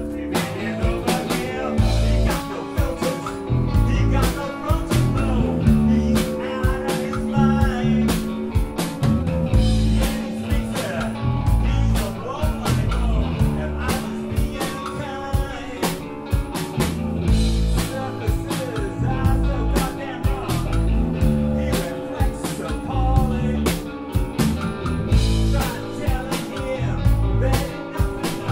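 A rock band playing live: distorted electric guitar, bass guitar and a drum kit, with drum hits throughout.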